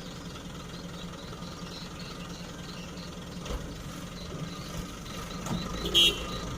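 Heavy diesel machinery engine running steadily at a low idle-like pace. A short, sharp, loud sound with a clear pitch cuts in near the end.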